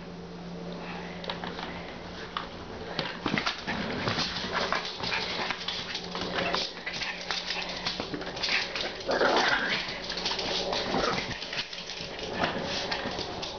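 Pug–Pomeranian mix dog playing at an oven mitt on a person's hand, making small dog vocal noises among many short scuffling and clicking sounds, with a louder longer cry about nine seconds in.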